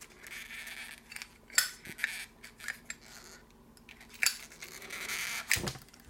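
A Zippo lighter being worked out of a snug new leather belt pouch by hand: leather rubbing and scraping, with a few sharp clicks of the metal lighter case against the pouch. The pouch is still stiff and not yet broken in, which makes the lighter hard to get out.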